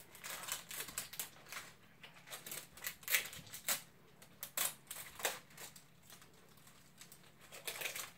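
Thin plastic wrapping of an L.O.L. Surprise ball crinkling and crackling in irregular sharp clicks as it is pulled and torn off by hand.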